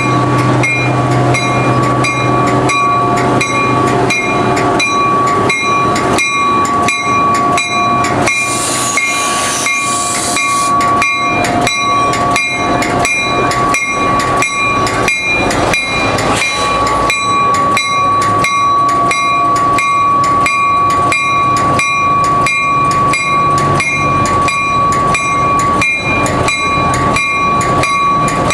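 A railroad bell ringing steadily, about two strikes a second, as a diesel switcher locomotive rolls slowly past with its passenger coaches. The engine's low hum is strongest near the start, and a brief hiss comes about eight seconds in.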